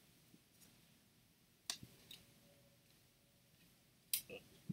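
Mostly quiet room with three or four short, faint clicks and light rustles from hands handling and unfolding a printed fabric pillowcase. The loudest click comes about four seconds in.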